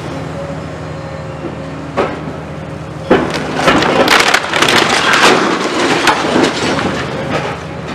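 Brick and concrete wall section collapsing under a demolition excavator's grab, crashing and clattering down as rubble from about three seconds in, after a single knock about two seconds in. The excavator's diesel engine drones steadily underneath.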